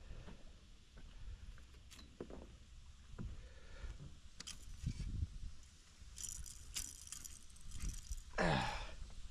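Light metallic clinks and knocks of fishing gear being handled in a small boat. Near the end comes a short, loud squeak that falls in pitch.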